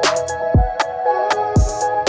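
Electronic background music: sustained synth notes over a beat with a deep, pitch-dropping kick drum struck twice and crisp hi-hat ticks.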